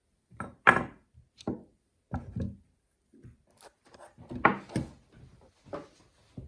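Irregular knocks and clicks from a Haenel 310 air rifle and its parts being handled during reassembly. The two loudest knocks come about half a second in and about four and a half seconds in.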